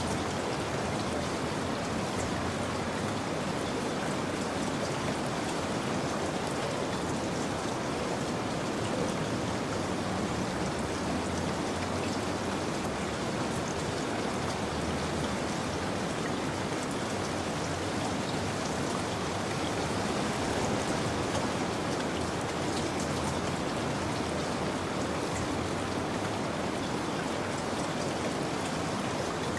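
Steady, even rain falling, a dense continuous patter with no change.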